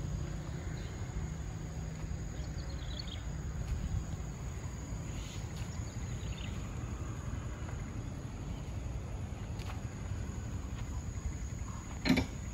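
Outdoor ambience: a steady low rumble under a thin, steady high insect drone, with a few faint chirps. A brief, sharp, loud sound comes near the end.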